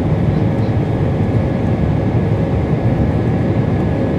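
Airbus A320's IAE V2500 turbofan engines and the rushing air, heard inside the cabin over the wing during the climb after takeoff: a steady low rumble with a faint steady whine above it.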